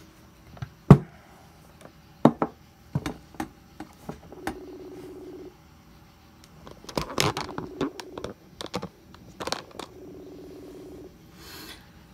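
Smartphone placing a Facebook Messenger call: the outgoing ringing tone, a buzzing ring about a second long, sounds a few times from the phone's speaker. Sharp taps and knocks of the phone being handled come before it, the loudest about a second in, with more handling noise between the rings.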